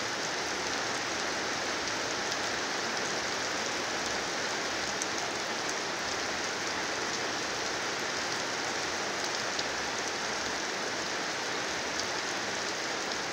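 Heavy rain falling steadily: a dense, even hiss of rain on the ground, with a few sharper drop ticks.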